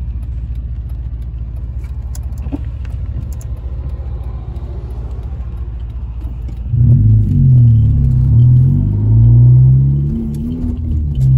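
Car engine heard from inside the cabin, idling with a steady low rumble, then about seven seconds in it gets louder as the car pulls away, its pitch rising and falling.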